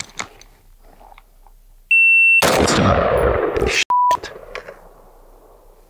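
A shot timer's high start beep, then a single rifle shot right after it that rings out with a long echo. A short, lower-pitched beep follows about a second and a half later.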